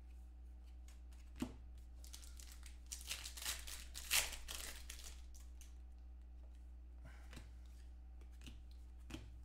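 A trading-card pack wrapper being torn open and crinkled by hand, a cluster of crackles loudest about four seconds in, followed near the end by a few light clicks of cards being handled.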